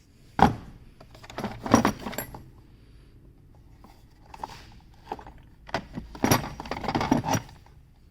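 Hard plastic clicks and rattling clatter in four bunches, the loudest a sharp knock about half a second in and a long rattle near the end: a DeWalt 18V cordless drill being handled, with its motor not running.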